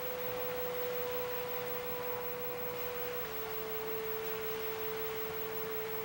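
Soft background music of pure, sustained sine-like notes, one held note stepping down to a lower one about halfway through, over a steady hiss.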